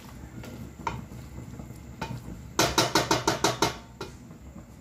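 Wooden spoon stirring thick chicken masala in a stainless steel pot, scraping and knocking against the pot's side. A little past halfway comes a quick run of about eight strokes, some seven a second.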